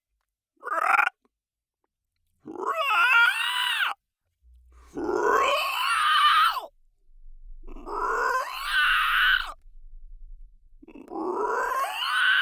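Monster sound-effect vocalisations: a short call, then four longer calls that each rise and then fall in pitch, with short gaps between them.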